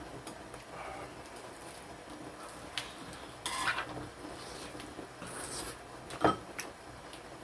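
Utensils and dishes clinking and scraping during a meal: a few separate light taps against tableware over a steady low hiss, the sharpest one about six seconds in.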